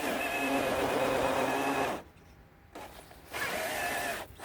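Electric RC monster truck's motor and gears whining under throttle, the pitch wavering. The whine cuts out about two seconds in, comes back over a second later, and dips briefly again near the end.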